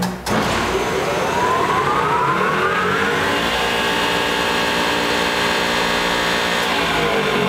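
The front planer head of a two-head wide belt sander-planer, driven by a 25 HP motor, starting up: a whine rising in pitch for about three seconds as the head spins up to speed, then running steady. Another rising whine begins near the end.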